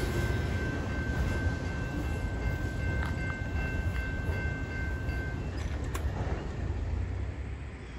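Freight train of autorack cars rolling away, its low rumble slowly fading as the end of the train recedes. Several thin, steady high-pitched tones ring over the rumble and stop about five seconds in.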